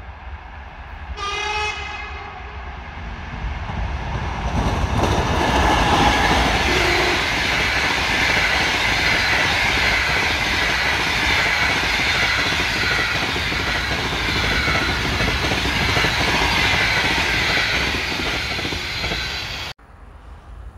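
EP2K electric locomotive hauling a passenger train sounds one short horn blast, then passes at speed: a loud, steady rush of wheels on rail with the clatter of the coaches, cutting off suddenly near the end.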